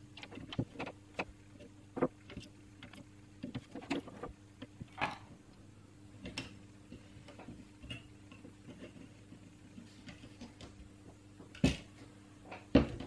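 Irregular small clicks, taps and clatter of hands handling tools and a circuit board on a workbench: a soldering iron picked up and the board turned over in its clamping PCB holder, with two sharper knocks near the end. A faint steady hum runs underneath.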